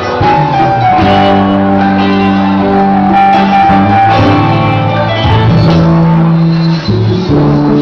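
Live cumbia band playing loud: electric guitar, keyboards and drums.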